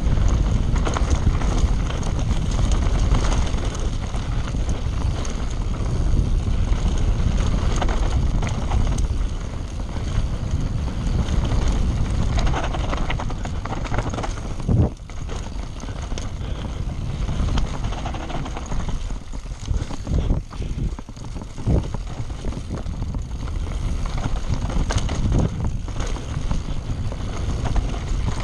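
Scott Spark full-suspension mountain bike descending a rocky dirt singletrack at speed: heavy wind rumble on the microphone over tyres running on dirt and stones, with frequent knocks and rattles of the bike over bumps, several sharp ones around the middle.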